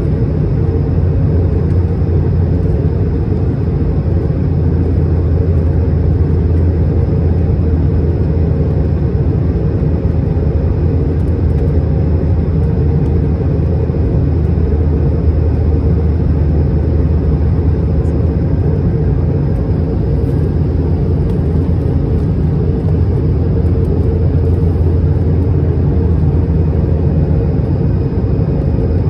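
Steady cabin noise inside a jet airliner descending on approach to land: a deep, even rumble of the engines and rushing air with a lighter hiss above it, unchanging throughout.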